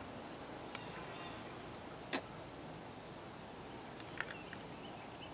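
Quiet outdoor ambience with a steady high-pitched insect drone, a sharp click about two seconds in and a fainter tick about four seconds in.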